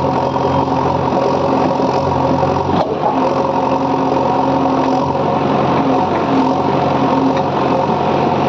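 JCB 3DX backhoe loader's diesel engine running steadily while the backhoe arm works, with one brief knock about three seconds in.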